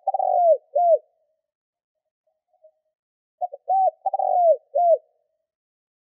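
Spotted dove singing its cooing song: the end of one phrase at the start, then about two and a half seconds later a full phrase of a few short clipped notes followed by drawn-out, arching coos.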